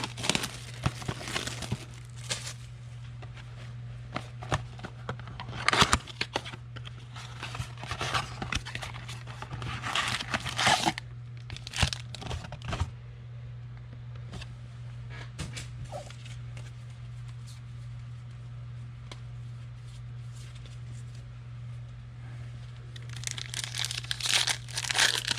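Trading card pack wrappers being torn open and crinkled by hand, in irregular bursts of rustling and tearing with pauses between them. A steady low hum runs underneath.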